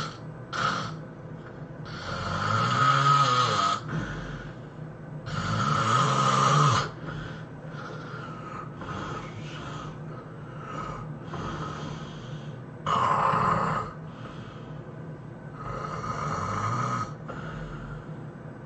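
A sleeping person snoring loudly, with heavy rasping snores at uneven gaps: two long ones in the first seven seconds and two shorter ones later. A steady low hum runs underneath.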